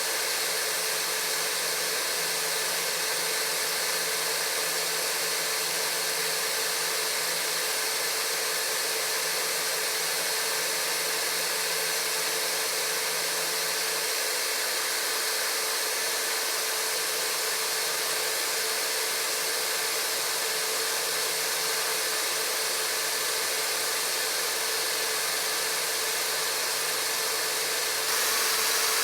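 A small electric motor-driven tool running with a steady whooshing hiss and a constant hum, stepping up slightly near the end.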